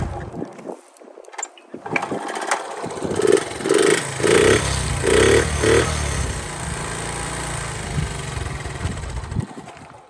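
Honda Monkey Z50J's small single-cylinder four-stroke engine starting about three seconds in, blipped four or five times, then idling steadily before it cuts off near the end. The engine is sold as free of abnormal noise.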